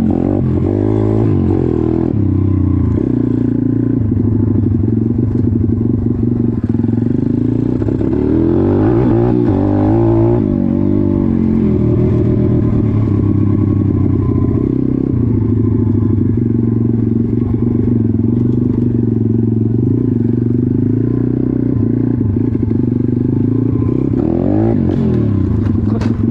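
Sur-Ron electric dirt bike being ridden over a bumpy dirt trail: the motor's whine rises and falls with speed, over the clatter and rattle of the bike on rough ground.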